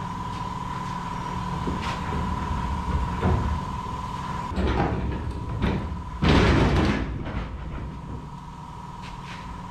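Clunks and a rattling scrape of metal in a shop, with the low rumble of a truck cab rolling on wheel dollies over concrete; the loudest clatter comes about six seconds in and lasts under a second.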